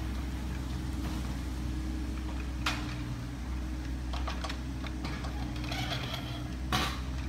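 Steady low drone of a running diesel engine, with two sharp knocks, about three seconds in and near the end, and a spell of light clicking and clattering just before the second knock.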